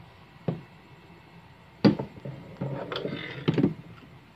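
Air fryer's clear cooking bowl and wire rack being handled and pushed back into the fryer: a sharp knock, then about a second of scraping and rattling that ends in a few clunks as the bowl goes home.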